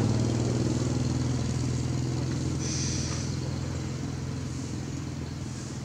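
A motor vehicle engine running at a steady pitch, growing gradually fainter, with a brief hiss about halfway through.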